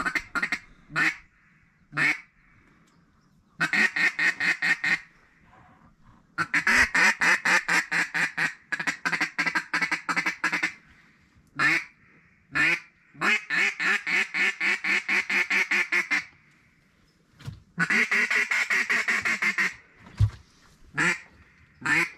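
Duck quacking in quick runs of evenly spaced quacks, about eight a second. Each run lasts one to four seconds, with pauses and single quacks between runs.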